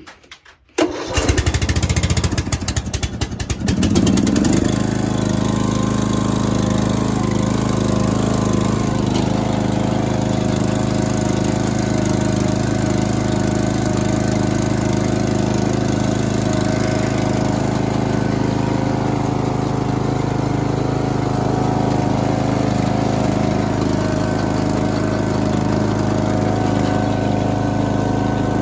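Lawn tractor engine cranking on its starter for about three seconds, then catching and running steadily.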